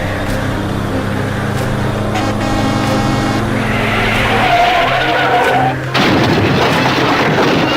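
A vehicle engine running with a steady hum, then a loud, noisy rush that starts suddenly about six seconds in.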